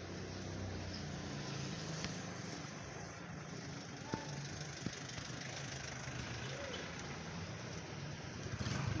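A motor vehicle's engine running steadily at low revs close by, over street traffic noise.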